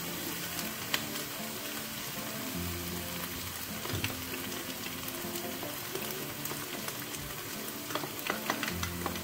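Noodles frying and sizzling steadily in a frying pan as a homemade sauce is poured over them, with a few light clicks.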